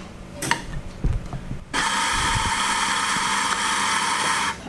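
Electric espresso grinder grinding a dose of coffee beans into a portafilter. It runs for about three seconds, starting about two seconds in and cutting off abruptly, after a few light clicks and knocks.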